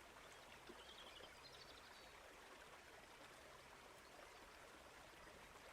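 Faint trickling brook water, a soft, steady babble of running water.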